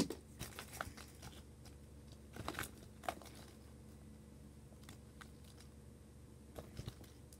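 Faint handling noises: light clicks and short rustles of small plastic toys and packaging being rummaged through, with one sharp knock right at the start.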